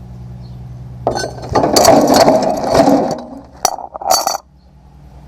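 Metal parts and tools clanking and clattering in a loud jumble for about two seconds, followed by two sharper metallic clinks near the end, over a steady low hum.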